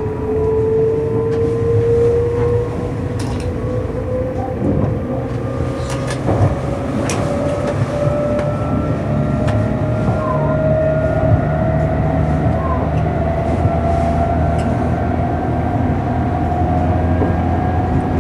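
Meitetsu 1030 series electric train running, heard from inside the car: a steady rumble with a motor whine rising slowly in pitch as the train gathers speed, and a few sharp clicks.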